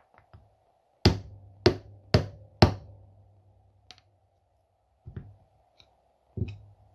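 Four sharp knocks about half a second apart as a screwdriver taps the carburetor body of a 1949 McCulloch 1225A chainsaw, then two lighter knocks near the end.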